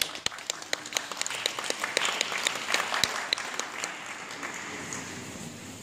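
Audience applauding, the separate claps easy to pick out, dying away about four seconds in.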